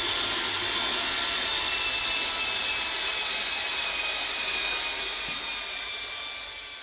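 Electric paddle-mixer drill running steadily with a motor whine, stirring sand aggregate into liquid epoxy to make cove mortar in a plastic bucket. The whine fades away near the end.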